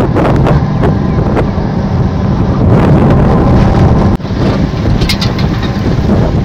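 Wind buffeting the phone's microphone: a loud, steady low rumble with a few faint clicks, changing briefly about four seconds in.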